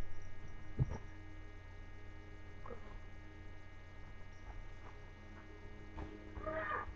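Steady low electrical hum, with a faint knock about a second in and a short, high, falling cry from a small puppy near the end.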